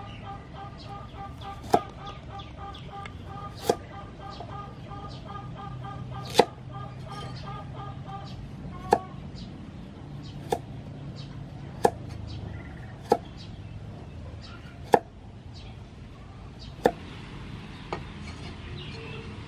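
A steel cleaver chopping a carrot on a thick wooden chopping block: about ten sharp chops, each a second or two apart.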